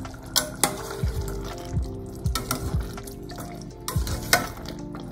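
A spatula stirring a steel pot of simmering curry, with several sharp knocks and scrapes against the pot, over soft background music.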